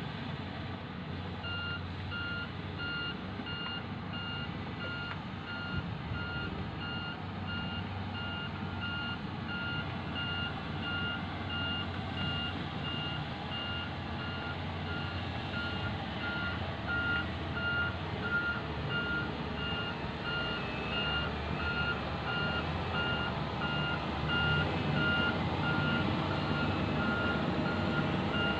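Reversing alarm of a heavy earthmoving machine beeping steadily as it backs up, starting about a second and a half in, over the low rumble of its diesel engine. The engine grows somewhat louder near the end.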